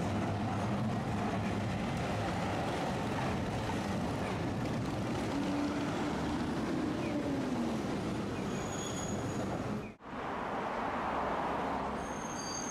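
Tosaden streetcar running along its tracks, a steady rumble of wheels and motor with a motor tone that holds and then falls about six to seven seconds in. The sound breaks off for an instant about ten seconds in and resumes, with a faint high whine near the end.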